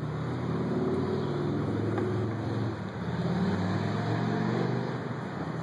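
A motor running with a steady low hum that wavers in pitch, dipping a little around the middle and then swelling again.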